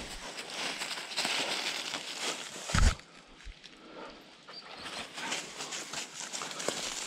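Footsteps of a person and a leashed tracking dog crunching and rustling through dry pine needles and leaf litter, with a loud dull thump nearly three seconds in and a quieter pause for a second or two after it.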